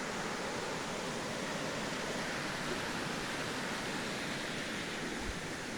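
A stream rushing steadily over a natural dam, a constant even hiss of running water.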